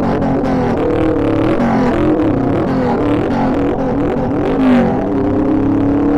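Motorcycle engine under way, its pitch rising and falling several times, then climbing steadily from about five seconds in as the bike accelerates.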